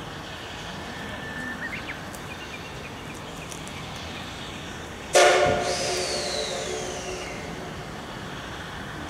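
Steam locomotive whistle giving one short blast about five seconds in. It cuts in suddenly and fades away over a couple of seconds, with a falling high-pitched tail.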